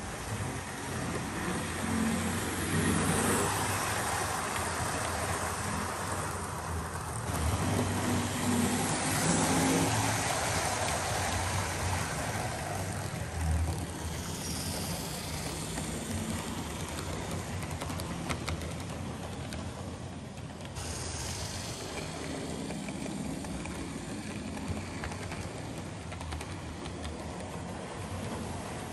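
OO gauge model train running on the layout: the electric motor hums and the wheels rumble and clatter along the track. The sound is loudest in the first third and somewhat quieter afterwards.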